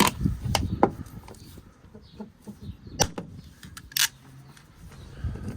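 Hand rivet gun being squeezed to set a pop rivet into a plastic car door panel: a series of separate clicks and knocks, with the sharpest crack about four seconds in.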